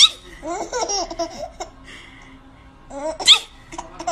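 Toddler laughing in short giggling bursts, with a sharp high squeal at the start and a louder one about three seconds in.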